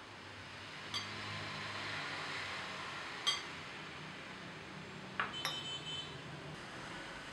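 A whisk beating egg yolks and oil in a glass bowl: a soft swishing, with the whisk clinking sharply against the glass now and then, about a second in, loudest at about three seconds, and twice more near five seconds.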